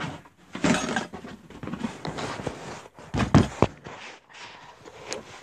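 Handling noise from the recording phone being picked up and propped up: rustling and scraping on the microphone, with two louder bumps, one just under a second in and one a little past three seconds.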